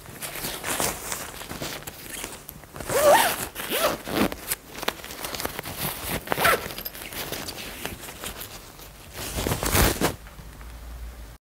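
Several strokes of a zip on a fabric carry bag, with rustling of the cloth between them: the folded pop-up travel cot's bag being zipped shut. The sound stops abruptly near the end.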